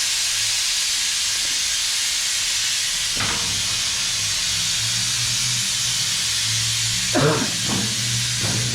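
Power grinder sharpening a steel lawn mower blade: a steady, even grinding hiss, with a low hum joining about three seconds in.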